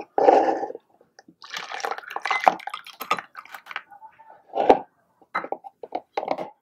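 Water and pasta poured from a tiny aluminium pot into a small plastic colander over a miniature metal sink, with a spell of splashing followed by sharp knocks of the pot and the colander's plastic lid.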